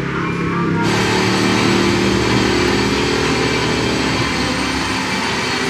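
Small scooter engine running steadily under way, with a constant rush of road and wind noise over it; it cuts in abruptly about a second in.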